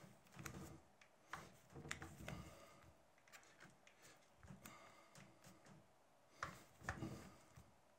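Scissors snipping through thin purple leather, trimming along the edge of the case in short, faint, irregular cuts, with two louder snips near the end.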